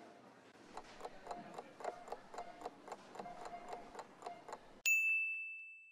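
Cartoon clock-ticking sound effect, a quick run of ticks over soft background music, ending with a single bright timer ding that rings and fades: the waiting time is up.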